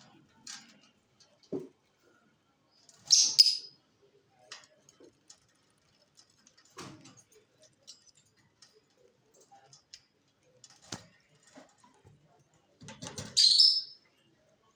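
Small birds giving short, high-pitched chirps: two loud calls, about three seconds in and near the end, with faint clicks and brief quieter sounds between.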